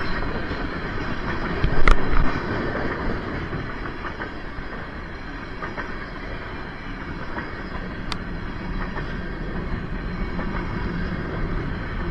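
Freight cars of a long CSX freight train rolling past, wheels clattering steadily on the rails. There is a loud bang about two seconds in and a sharp click near eight seconds.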